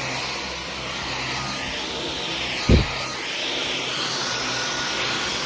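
Dyson V15 Detect cordless stick vacuum running steadily on medium power, its high motor whine over a rushing airflow that swells and fades as it is pushed back and forth. A single dull thump about halfway through.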